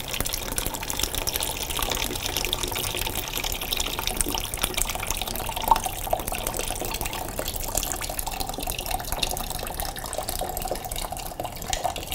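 Coolant flush water pouring in a steady thin stream from a motorcycle's water pump drain into a plastic drain pan, splashing into the liquid already in the pan. This is the draining stage of a cooling-system flush, the water still tinged green with old coolant.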